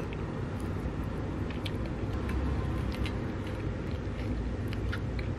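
A person chewing a mouthful of soft chestnut mont blanc close to the microphone: a steady low rumble with small mouth clicks now and then.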